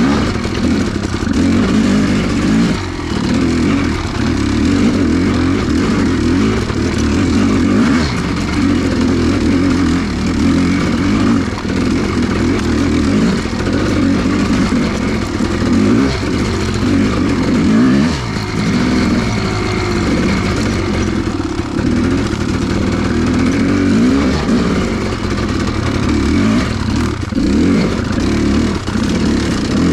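Kawasaki KX500's single-cylinder two-stroke engine under way, its pitch rising and falling with the throttle as the bike is ridden, with a sharp drop in revs about eighteen seconds in.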